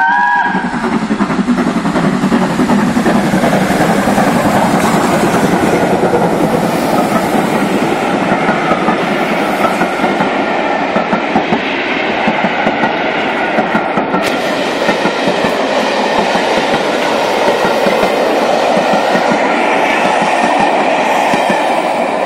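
Steam-hauled passenger train passing close by at speed: the steady rumble of the locomotive and a long rake of coaches, with the wheels clickety-clacking over rail joints. The last half-second of a multi-note whistle is heard at the very start.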